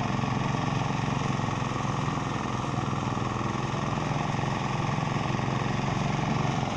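A small engine running steadily at constant speed.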